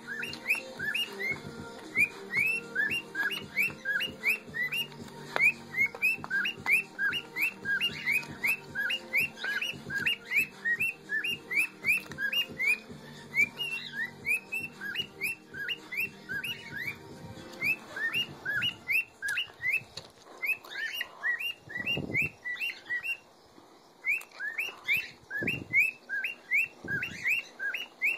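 Cockatiel chirping over and over, short rising-and-falling chirps at about three a second with a brief pause about two-thirds through. A low steady hum sits underneath for the first two-thirds.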